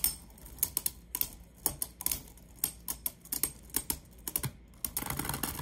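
Two spinning Beyblade Burst tops clashing in a plastic stadium, giving irregular sharp clacks several times a second. Near the end comes a quick run of rattling as both tops run down to a tie.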